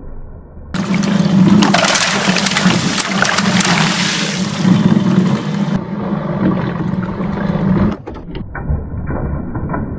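A loud rush of water with many sharp crackles, starting about a second in and cutting off abruptly near the end.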